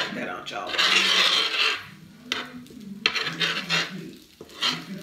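Metal fork scraping and stirring fried rice cakes across a metal griddle tray in several rasping strokes, the longest and loudest about a second in.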